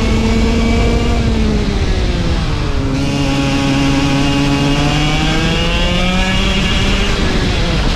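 Racing kart engine heard onboard at full volume. Its note drops as the kart slows over the first couple of seconds, climbs steadily as it accelerates, then drops again near the end.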